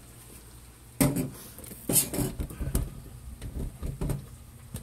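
Kitchen clatter of cookware being handled at the stove: two sharp knocks about one and two seconds in, then a string of lighter clinks and rattles.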